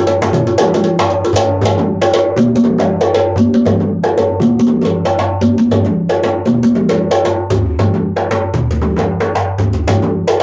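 Camel-skin bougarabou drums played by hand in a fast, steady rhythm, mixing pitched tones with deep bass strokes.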